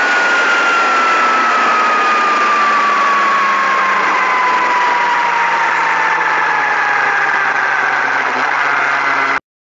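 Onboard sound of a turbocharged Suzuki Hayabusa inline-four at speed: engine noise under a heavy rush of wind, with a whine that falls slowly and evenly in pitch. The sound cuts off suddenly near the end.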